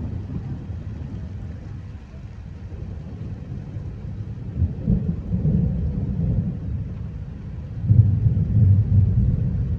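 Thunder rumbling in a thunderstorm, low and uneven, swelling about five seconds in and growing loudest near the end.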